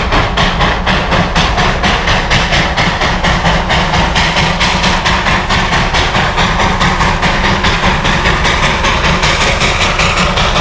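Darjeeling Himalayan Railway narrow-gauge steam locomotive chuffing as it pulls a train away, its exhaust beats coming fast and even, several a second.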